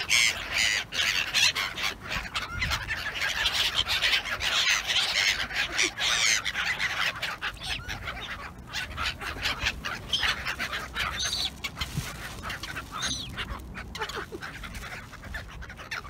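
A flock of black-headed gulls calling, many harsh cries overlapping at once; the calling is densest in the first half and thins out toward the end.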